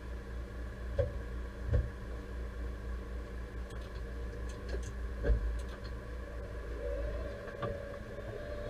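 Deutz-Fahr 5100G tractor engine running steadily, heard from inside the cab, with several sharp knocks, the loudest about five seconds in. The low engine rumble drops off near the end.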